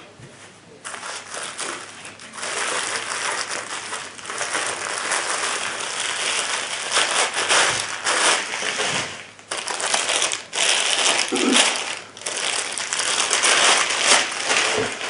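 Packaging crinkling and rustling as the rifle scope is unwrapped by hand. It starts about a second in and runs with a few short pauses.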